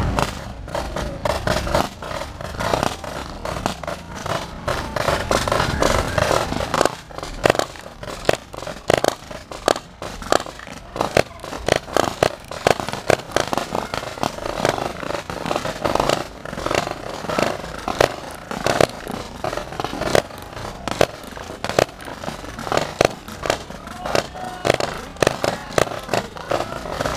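Mounted paintball markers firing many quick, irregular shots. Under them is a low rumble that fades after about seven seconds.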